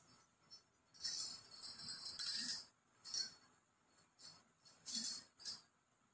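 Bangles jingling in irregular bursts as the arms move, mixed with the rustle of a cotton dupatta being handled; the longest burst is a little over a second in, with shorter jingles through the rest.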